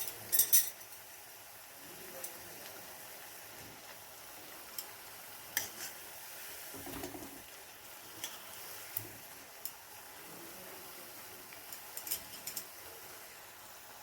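Metal kitchen utensil clinking and scraping against a cooking vessel: several sharp clinks in small clusters near the start and around twelve seconds, single clinks in between, and a short scrape about seven seconds in, over a faint steady hiss.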